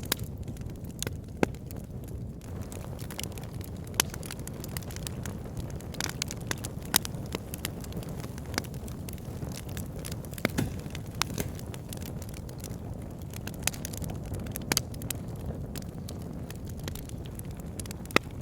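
Wood logs burning in a log burner: a steady low rush of fire with sharp, irregular crackles and pops, the loudest a few seconds apart.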